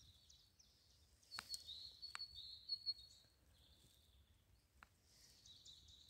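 Small birds twittering faintly in short high trills, with a few faint sharp clicks in between.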